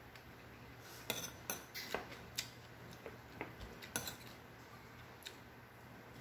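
Metal spoon clinking and scraping against a ceramic bowl while eating: a quick run of sharp clinks in the first half, then a few single clinks.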